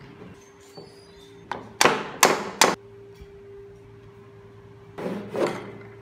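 Sharp knocks of wooden parts of a hand-made wooden model car being handled and set down: four in quick succession a couple of seconds in and two more near the end, over a faint steady hum.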